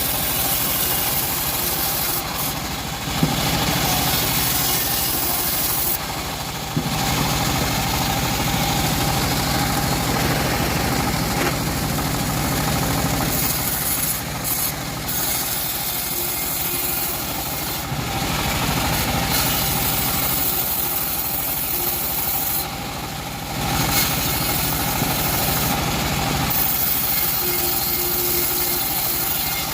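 Two-stroke chainsaw running steadily while cutting teak wood, its note easing briefly several times.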